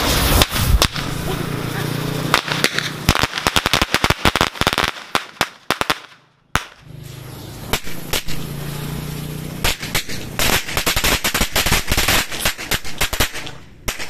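A ring of small diamond firecrackers set off together. Fizzing gives way to a fast run of sharp cracks, then a sudden break. More fizzing follows, then a second, longer run of rapid cracks.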